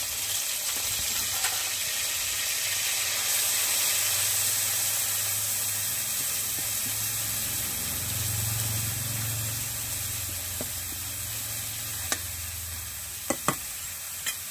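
Ginger, garlic and onion paste frying in hot mustard oil in a karai, a steady sizzle. A few sharp clicks of the spatula against the pan come near the end.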